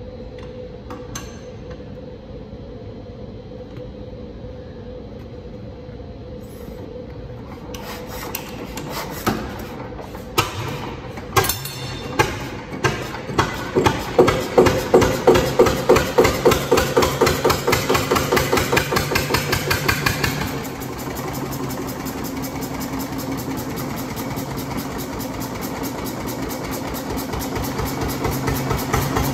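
1919 Hvid 6 hp single-cylinder, horizontal-piston stationary oil engine, burning kerosene, starting up: a few irregular sharp knocks as it turns over and catches, then a fast, even beat of loud firing pulses that about two-thirds of the way through drops back to a quieter, steady running beat. A steady hum comes before the engine starts.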